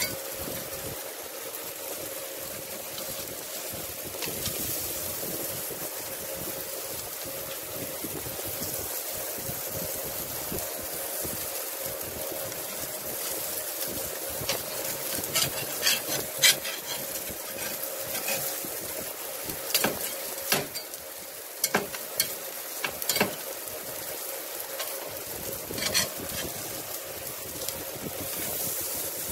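Salmon steaks sizzling on a grill grate, a steady hiss. Partway through, a metal spatula clicks and scrapes against the grate several times as the pieces are moved.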